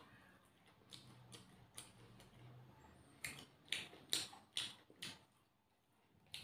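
Quiet eating sounds of rice eaten by hand: soft wet clicks and smacks from fingers mixing the food and from chewing. A quick run of about six louder clicks comes about halfway through.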